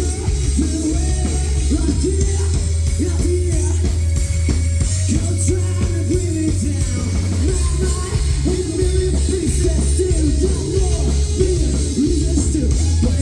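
Live rock band playing a song, with loud, steady bass and drums under a shifting melody line.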